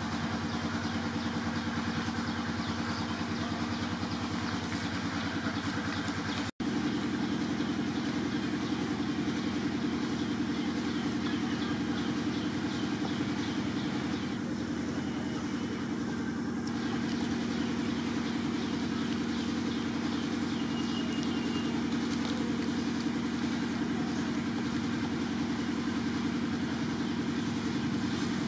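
Steady low mechanical hum, cutting out for an instant about six and a half seconds in.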